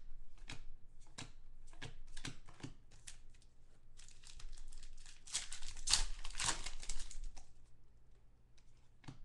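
Foil trading-card pack wrapper crinkling and tearing as it is opened, with cards rustling and flicking between hands. The crinkling is densest and loudest a little past halfway and thins to scattered clicks near the end.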